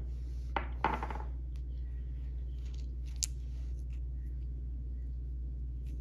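Small pebbles being handled in the fingers, with a few light clicks of stone on stone or on fingernail and one sharp click about three seconds in, over a steady low hum.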